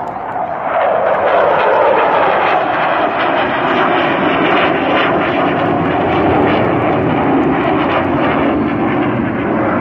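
F-16 fighter jet flying a display pass, a loud rushing jet roar that swells about a second in. Its pitch slides slowly downward as the jet passes.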